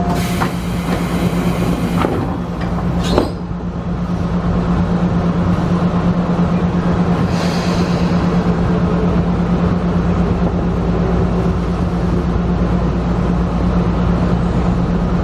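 Tobu local electric train standing at a station, a steady low electrical hum heard from the cab over background noise. A hiss of air over the first couple of seconds and a single thump about three seconds in.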